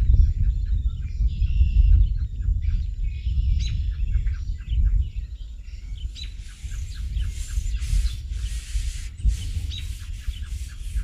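Small birds chirping over a steady low rumble. From about six seconds in, a folded paper towel gripped in tongs rubs across the hot steel griddle top in repeated scratchy strokes, wiping on the first coat of grease to season it.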